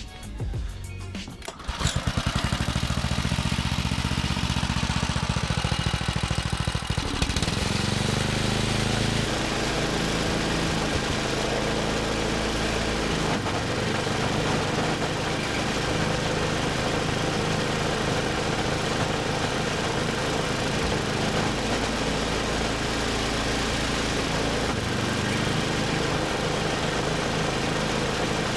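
The small gasoline engine of a 1979 John Deere 1032 snowblower starting about two seconds in and then running steadily, with background music underneath.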